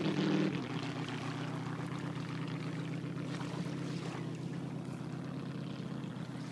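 Jet boat engine running at speed out on the water: a steady drone with an even hum, louder for about the first half-second and then holding level.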